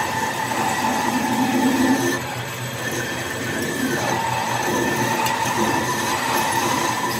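Workshop machine running steadily, a constant whine over a rumbling noise.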